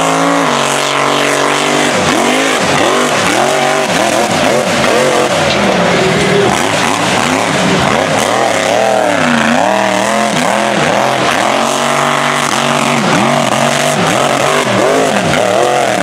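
Small mega truck's engine revving hard under racing throttle, its pitch swinging down and back up over and over.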